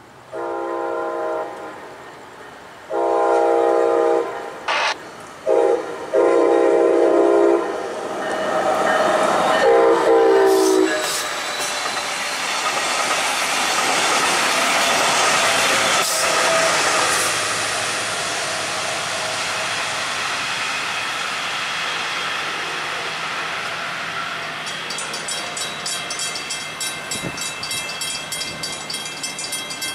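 Brightline passenger train sounding its multi-tone air horn in a grade-crossing sequence: two long blasts, two short ones, then two more long ones, the last bending down in pitch as it comes by. Then the train rushes past with steady wheel-on-rail noise, and a rapid ticking comes in near the end.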